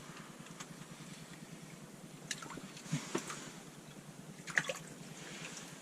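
Water splashing and dripping at an ice-fishing hole as a bluegill is pulled up and out, with a few short splashes about two, three and four and a half seconds in.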